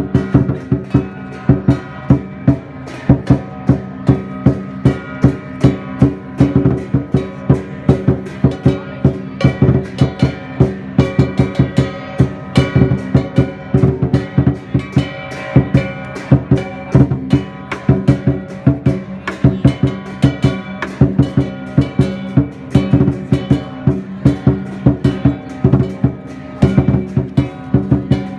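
Music with a steady drum beat over sustained pitched instruments and plucked strings.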